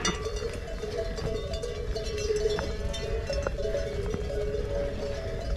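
Bells on grazing livestock jangling without a break, several bells ringing at slightly different pitches, with scattered sharp clicks.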